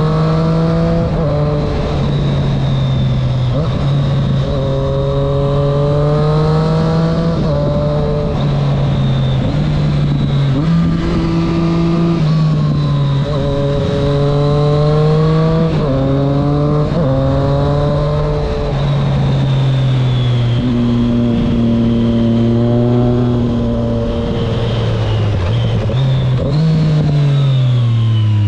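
Triumph Street Triple S 660 inline-three with an SC-Project exhaust, ridden under acceleration: the engine note climbs in pitch in several runs, each broken off by an upshift and picking up again lower.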